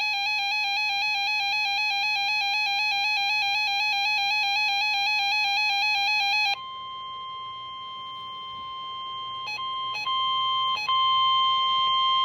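Electronic alert tones on a weather radio broadcast. A fast two-pitch warbling alarm tone runs until about six and a half seconds in. It then gives way to a steady tone near 1 kHz, the NOAA Weather Radio warning alarm tone that announces an emergency alert, which drops out briefly a few times.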